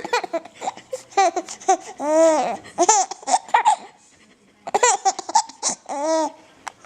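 A baby laughing in high-pitched, repeated bursts: two runs of giggles with a short pause a little past halfway.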